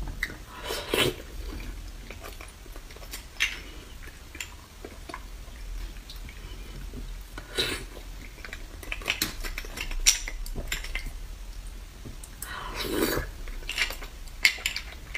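A metal spoon clinking and scraping against cooked beef marrow bones, with chewing of the soft marrow. The short clicks and scrapes come irregularly, a few seconds apart.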